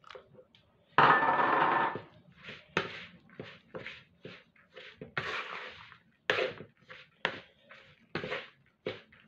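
Spatula stirring and scraping a damp, grainy conkie mixture of grated pumpkin, coconut and cornmeal in a plastic bowl: a longer, louder scrape about a second in, then short strokes about twice a second.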